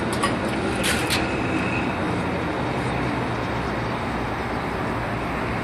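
Steady outdoor traffic noise, with a brief high hiss about a second in.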